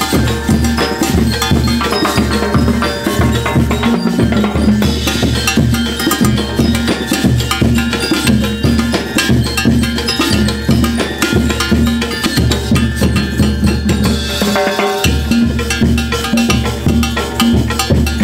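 Live school marching band playing: drums, including bass drum and snare, with cowbell and brass, keeping a steady driving beat. The low drum drops out briefly about fifteen seconds in.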